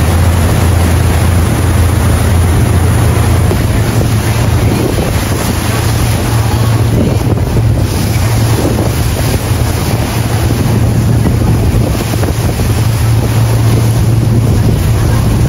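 Water rushing and churning along the hull of a fast-moving tour boat, with wind buffeting the microphone and a steady low drone from the boat's engines underneath.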